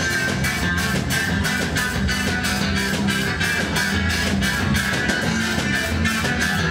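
Live band playing amplified music: electric guitar and bass guitar over a drum kit, with a steady beat of about four strokes a second.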